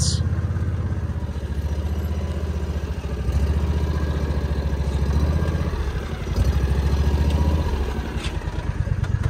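An engine running with a steady low rumble, its loudness dipping and rising again a few times, with a little clatter.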